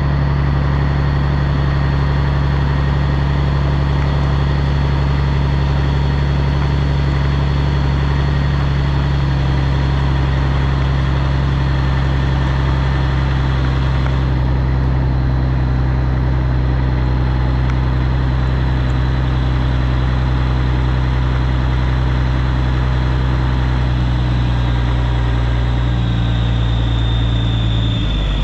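Engine of a heavy air-braked truck running at a steady speed, with a slight shift in pitch near the end.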